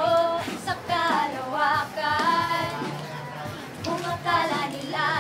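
A small group of women singing a short sample of a song together, sustained sung phrases, into a handheld interview microphone.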